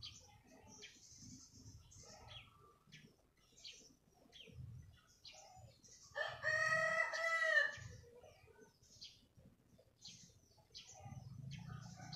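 A rooster crowing once, a single call of about a second and a half in the middle, with small birds chirping throughout.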